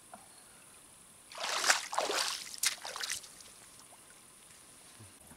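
Shallow river water splashing and sloshing as a person stands and moves in it: a cluster of splashes from about a second in until about three seconds in.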